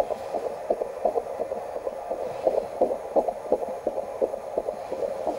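Fetal heartbeat picked up through the mother's belly by a handheld Doppler fetal monitor: a fast, even whooshing pulse of about two to three beats a second, like someone swinging a lasso.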